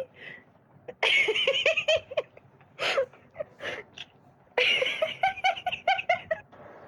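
Laughter in two bouts of quick repeated pulses, the first about a second in and the second after the middle, with a few short single calls between them.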